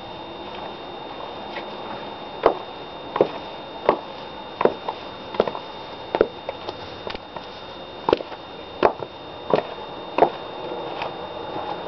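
High-heeled shoes clicking in a steady walking rhythm. There are about a dozen sharp steps, roughly two-thirds of a second apart, starting a couple of seconds in.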